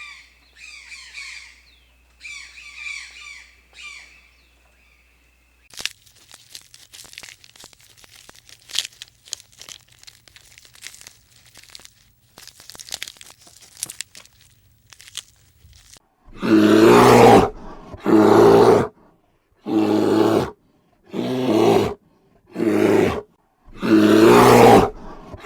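Animal sounds: a few squawking calls at the start, then a stretch of faint dry crackling and clicking, then a series of six loud calls, each about a second long, about a second and a half apart.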